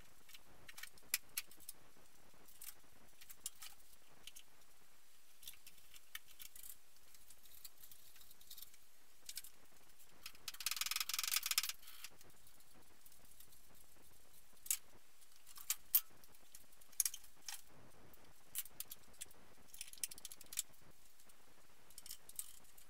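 Scattered light metallic clinks and ticks from the engine hoist's chains and the engine's metal parts as the engine is lowered into the bay, with a brief jangling rattle of chain about ten and a half seconds in.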